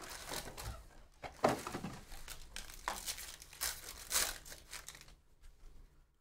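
Foil wrapper of a Panini Donruss basketball hobby pack crinkling as it is pulled from the box and torn open, in a string of rustles that stop about five seconds in.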